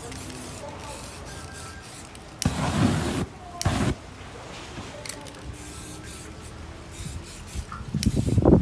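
Aerosol spray paint set alight with a whoosh across the canvas. One loud burst comes about two and a half seconds in and lasts nearly a second, and a shorter one follows half a second later. More spraying starts near the end.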